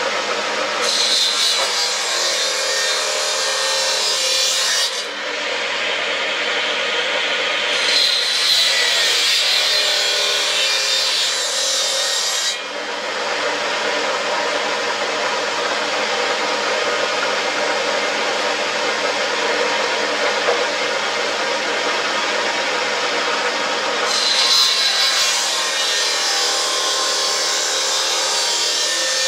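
Circular table saw running steadily, its blade cutting into a wooden cricket bat handle three times: a hissing cut about a second in, another around eight seconds in, and a third near the end, with the motor humming between cuts.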